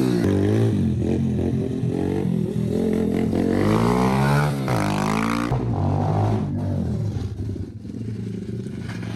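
Kayo 125 YX pit bike's single-cylinder four-stroke 125 cc engine revving up and down as it is ridden, the throttle opened and closed again and again. It is quieter in the last couple of seconds as the bike moves off.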